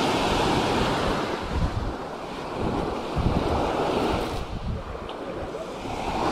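Ocean surf washing up the beach, with wind buffeting the microphone in low rumbles. The wash swells and ebbs, easing about two-thirds through and building again near the end.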